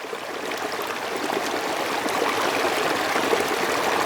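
Synthesized river ambience from the Opal background-sound program: a steady rushing, trickling stream that fades up over the first couple of seconds as its volume dial is turned up, then holds steady.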